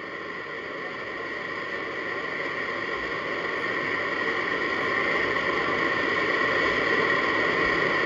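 Steady hiss of static on the broadcast audio, growing gradually louder.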